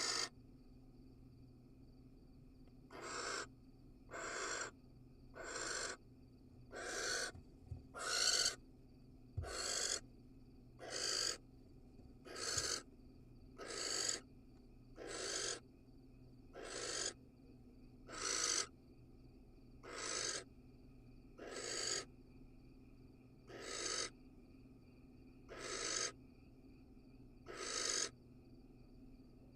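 Barn owl hissing calls, a rasping breathy hiss repeated about every one and a half to two seconds.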